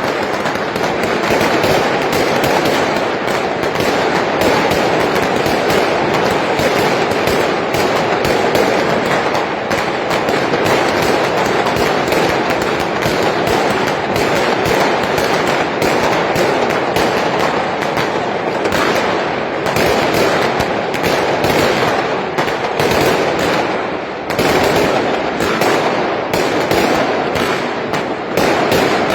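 New Year's fireworks and firecrackers going off continuously, a dense, unbroken crackle of many overlapping bangs, briefly thinning about two-thirds of the way through.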